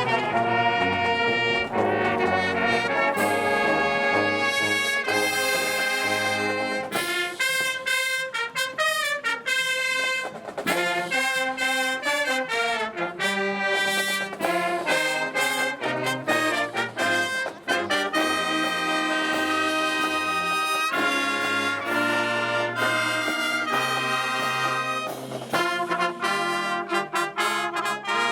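Marching band playing a brass tune: trumpets and trombones carrying the melody over moving bass notes.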